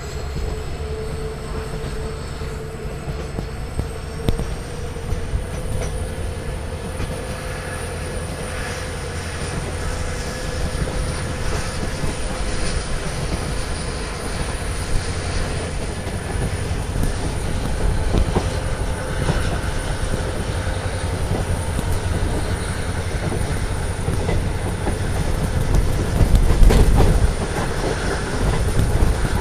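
Passenger train running, heard from inside a coach: a steady rumble of wheels on rail with scattered clicks, and a thin high whine that rises over the first few seconds and then holds steady. The rumble swells louder about 27 seconds in.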